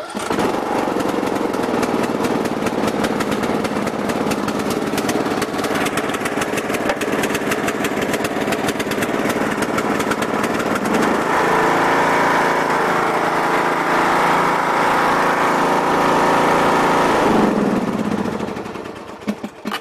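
Craftsman T110 riding lawn mower engine starting on the key and running steadily. About halfway through it speeds up, and near the end it winds down and stops as it is switched off.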